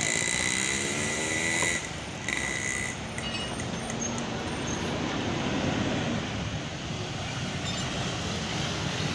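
A tour bus engine pulling up a hill, its pitch rising over the first two seconds under a steady high whistle-like whine that cuts out twice. After that comes a steady rumble of passing traffic.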